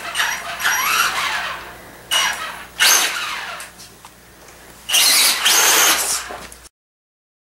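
Electric motor and gears of an Axial Wraith RC rock racer whining in several short throttle bursts, the pitch rising and falling with each burst. The sound cuts off suddenly near the end.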